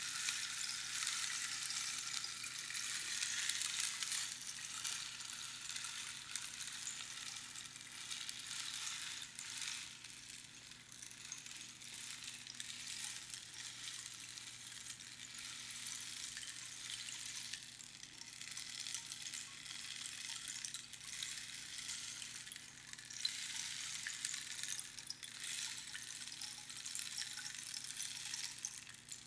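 Rainstick pouring: a dense, uneven hiss of pebbles trickling down through the pins inside the tube, rising and falling in loudness, with a soft patter like falling rain.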